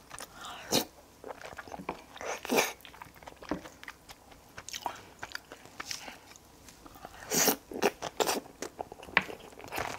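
Close-miked eating of curry with rice: irregular chewing, biting and wet mouth sounds, loudest about two and a half and seven and a half seconds in.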